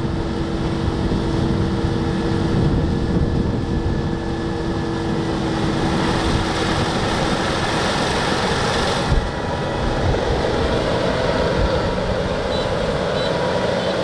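Kubota DR6130 combine harvester running steadily, its diesel engine and harvesting machinery giving a continuous mechanical drone. The sound changes abruptly about nine seconds in.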